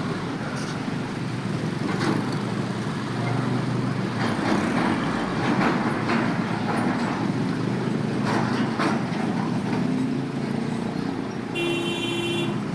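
Road traffic at a railway level crossing running steadily, with one short vehicle horn toot near the end.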